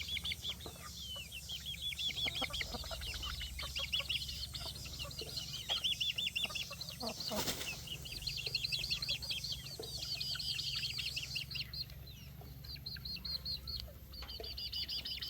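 Young domestic chicks peeping continuously in quick high-pitched calls, with scattered small clicks and a short rushing burst about halfway through.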